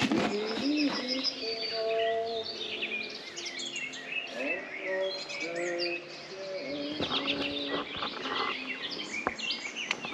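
Several birds singing and chirping outdoors, with many short high calls and trills, over a chorus of low, drawn-out notes repeating at a few different pitches. A few brief knocks break in.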